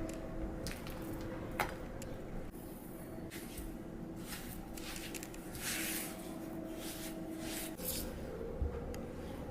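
Kitchen preparation sounds: soft squishing with a few light clicks and short scraping hisses.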